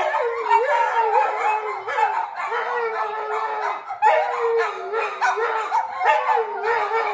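A group of small dogs howling together, several long howls overlapping at different pitches that rise and fall, with a brief dip about four seconds in.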